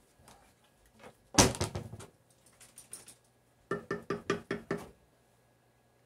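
A loud clatter about a second and a half in, then a spatula tapped about six times in quick succession against the rim of a metal cooking pot, each knock ringing briefly.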